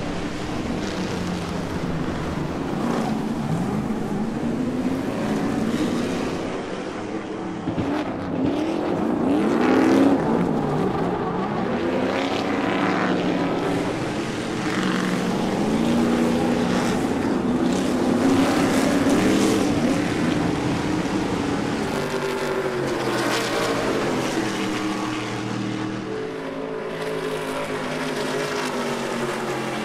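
Stadium Super Trucks' V8 race engines running at racing speed, the pitch rising and falling over and over as the drivers accelerate, shift and lift for corners, with several trucks heard at once.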